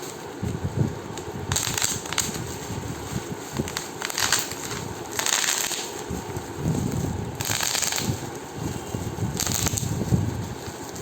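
Bubble wrap being squeezed and popped by hand: irregular snaps and short crackling bursts, with crinkling of the plastic between them.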